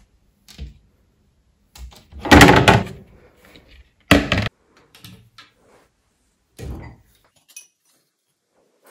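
Kitchen cupboard doors being opened and shut and kitchenware being handled: a series of separate knocks and clunks, the loudest about two seconds in and a sharp one about four seconds in.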